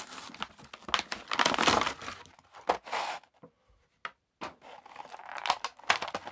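Cardboard and plastic action-figure packaging being torn and crinkled by hand as the figure is taken out, with a pause of about a second midway before the plastic tray crinkles again.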